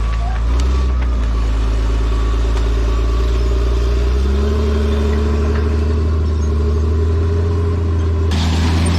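Bulldozer's diesel engine running steadily under load, its pitch shifting slightly about four seconds in; near the end the sound abruptly turns harsher and brighter.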